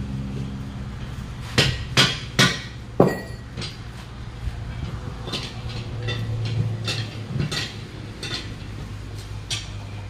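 Hand tool striking a steel truck wheel rim during tyre removal: four sharp metal blows in quick succession starting about a second and a half in, then lighter clinks and taps, over a steady low hum.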